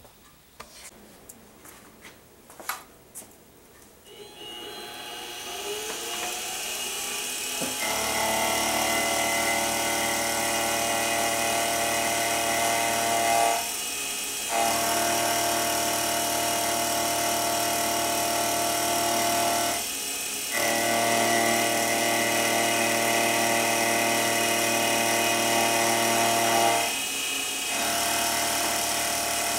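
A few quiet seconds with small knocks, then a benchtop mini mill runs up and cuts metal with its end mill. Its motor and spindle whine steadily at several fixed pitches, with brief drops three times.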